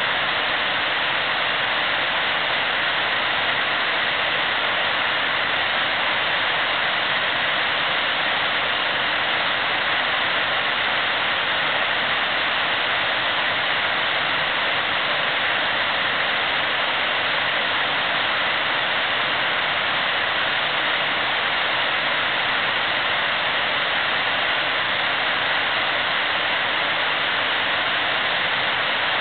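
Steady rush of river rapids: an even hiss of flowing water with no breaks.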